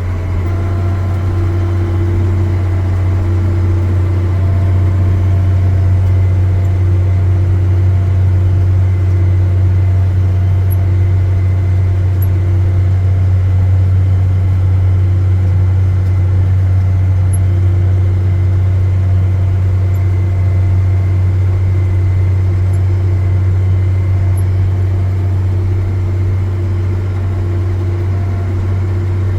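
Engine of a 1980-era swathing machine running steadily at working speed: a loud, even, low drone that never changes.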